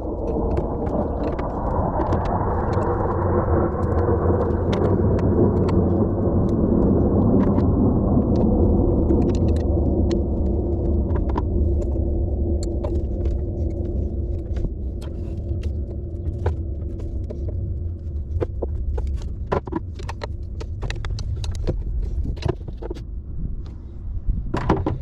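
A steady low rumble with many sharp clicks and snaps scattered through it, more of them in the second half, as hoses and lines are pried off jet ski carburetors.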